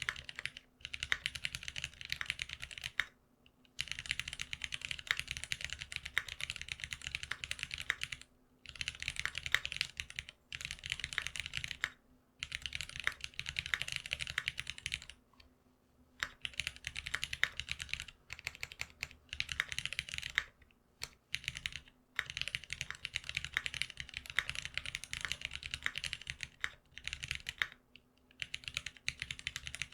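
Typing on a GeonWorks F1-8X custom mechanical keyboard with lubed Cherry Retooled Black linear switches on long springs: fast runs of keystrokes broken by short pauses about every few seconds.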